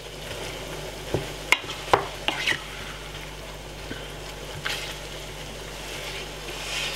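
Wooden spoon stirring and breaking up tinned mackerel in a saucepan of sauce, with several sharp knocks of the spoon against the pan about one to two and a half seconds in, over the steady sizzle of the sauce cooking.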